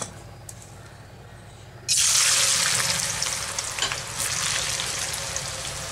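A large handful of thin-cut raw potato shreds dropped into hot oil in a kadai: a sudden loud sizzle breaks out about two seconds in, then slowly eases as the oil keeps bubbling around the potatoes.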